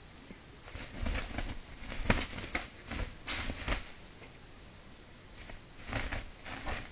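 Abyssinian kitten scrambling on a fabric blanket while chasing its tail: rustling of the cloth and soft thumps of paws. It comes in two flurries, one through the first half and a shorter one near the end.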